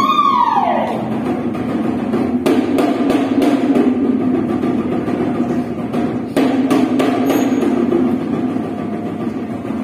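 Choir singing in parts with sharp percussive knocks, likely from the performers' choreography on the stage. A high sung note slides down in the first second, and the knocks come about two and a half seconds in and again at about six and a half and seven seconds.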